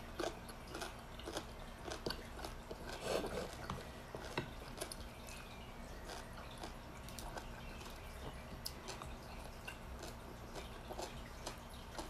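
A person chewing and eating by hand: soft mouth sounds with scattered small clicks, over a faint steady low hum.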